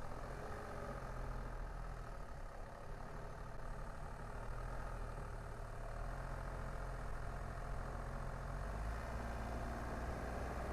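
Car's engine and road noise, a steady low hum with a rumble of tyres, as the car drives slowly.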